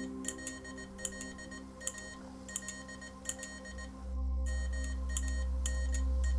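Electronic ambient music: a sustained synth drone with short, high beeps about every three-quarters of a second. A loud deep bass tone comes in about four seconds in.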